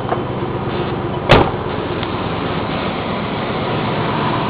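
1997 Chevy Tahoe's replacement engine idling steadily, with one sharp bang about a second in.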